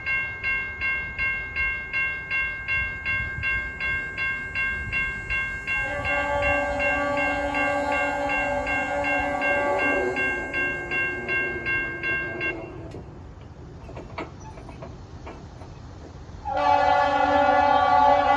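A train's bell ringing about twice a second; about six seconds in, the train's horn joins with a long, steady multi-note chord, and both stop together. After a few quieter seconds of low rumble, the horn sounds again, loud, near the end.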